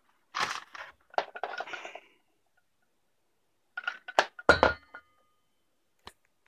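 Handling noises from an angle grinder fitted with a circular saw blade, not running: two clusters of knocks and clinks, the loudest about four and a half seconds in with a short metallic ring, then a single click near the end.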